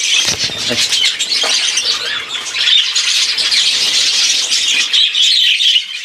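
Many budgerigars chattering and warbling together, a dense unbroken chorus of high chirps and squawks, with a short low rustle in the first second.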